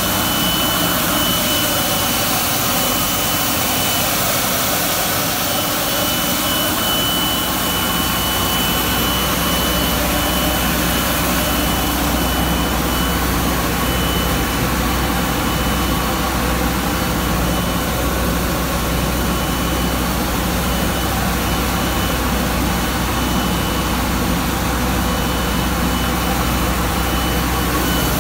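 High-speed vortex plastic pulverizer running under load as plastic granules are fed in and ground to powder: a loud, even roar with a low hum and a thin high whine that drops out now and then.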